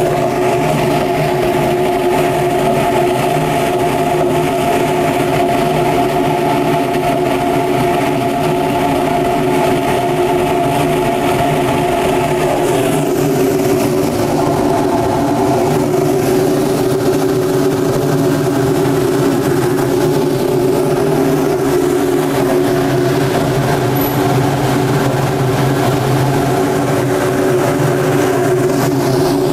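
Cremation furnace burner running at full fire, a steady roar of flame and forced air with a droning hum that shifts slightly in pitch about halfway through.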